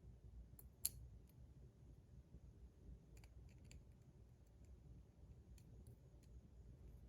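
Faint small clicks from the metal parts of a fidget spinner being handled as its buttons are swapped onto another spinner, with one sharper click about a second in.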